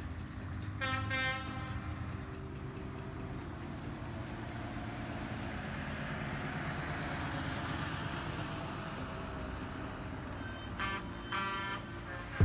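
Heavy trucks rolling past at low speed with a steady diesel rumble. A truck horn sounds briefly about a second in and again near the end.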